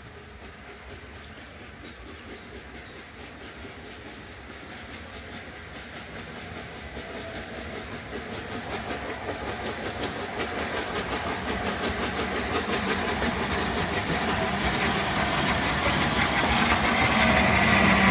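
Peppercorn A2 Pacific steam locomotive No. 60532 and its train approaching, growing steadily louder from faint to loud as it draws near, with a regular rhythmic beat from the engine becoming clearer in the second half.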